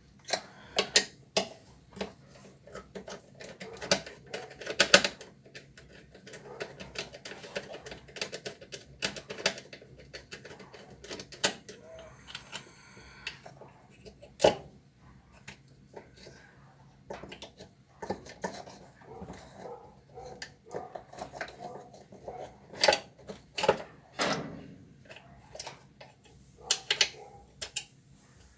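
Hand tools and washing-machine parts being handled: irregular clicks, knocks and clatter, with a few sharp louder knocks and a brief high squeak about halfway through.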